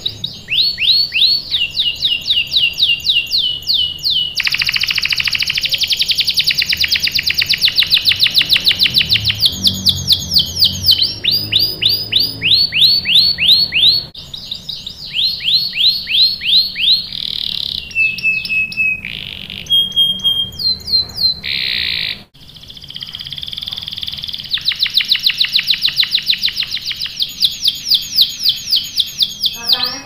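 Domestic canary singing a long, rolling song: fast runs of the same short sweeping note repeated many times, each run lasting a few seconds before switching to another, with brief breaks about 14 and 22 seconds in.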